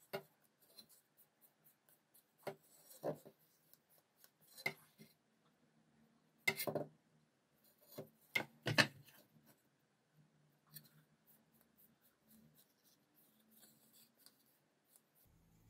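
Paintbrush stroking and dabbing paint onto a wooden machete handle: irregular short brushing scrapes and soft taps, a few louder ones as the machete is turned and handled.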